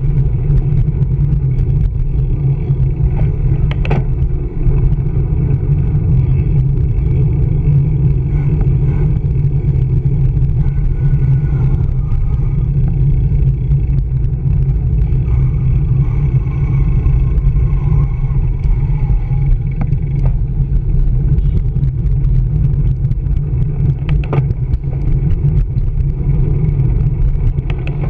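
Steady low rumble of wind buffeting a bicycle's handlebar-mounted camera while riding, mixed with city street traffic. A couple of brief knocks come through, once near the start and once near the end.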